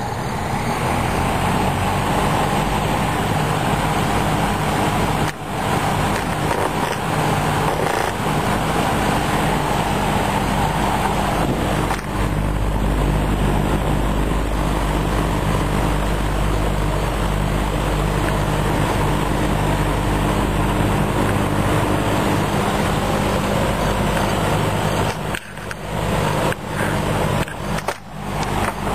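Mid-1960s Lakewood box fan running, a steady whoosh of air from the blades over the electric motor's hum. It comes up to speed in the first second, and near the end the sound dips sharply a few times.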